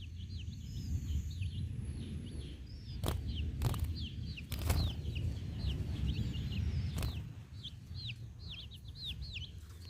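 Small birds, blue-black grassquits (tizius), chirping over and over in short, high, falling notes. A low rumble runs underneath, and a few sharp knocks come through the middle.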